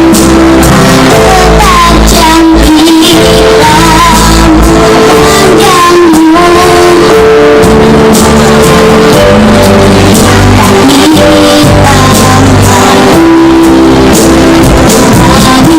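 A child singing a song solo over loud backing music with guitar and percussion, recorded very loud.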